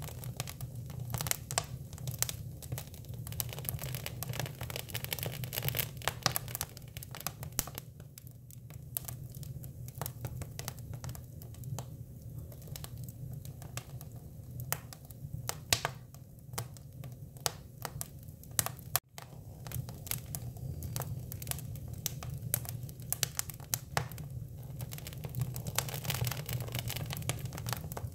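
Hinoki cypress wood burning, crackling and popping irregularly over a steady low hum.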